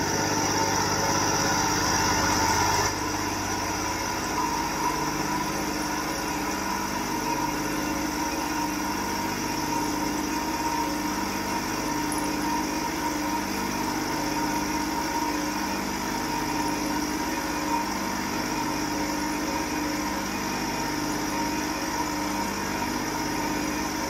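CNC lathe's live-tool end mill spinning and cutting into a threaded steel tube: a steady machine whine made of several held tones. The sound shifts slightly about three seconds in, then runs on unchanged.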